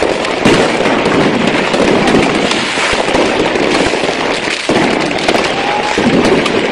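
Fireworks going off at ground level in a malfunctioning display: a loud, dense, continuous crackle of many small bangs, with a brief dip about two-thirds of the way through.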